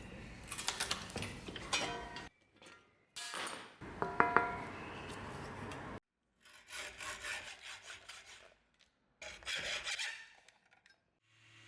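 Hand-tool scraping strokes from shaping the knife, heard in short clips that cut off abruptly, with a brief metallic ring about four seconds in.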